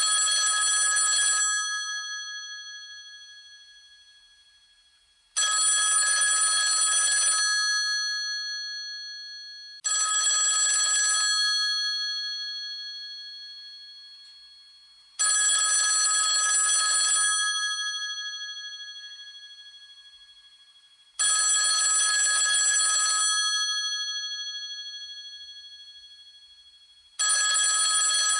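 Old telephone bell ringing in bursts of about two seconds, each ring starting abruptly and fading away over several seconds. Five rings come about five seconds apart.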